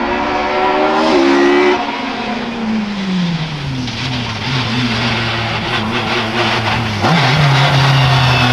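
Hill-climb race car engines: one engine's note rises, then falls away steadily over a couple of seconds, and about seven seconds in a louder engine note comes in and holds steady.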